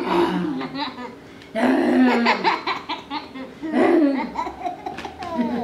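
A toddler girl laughing in about four short bursts.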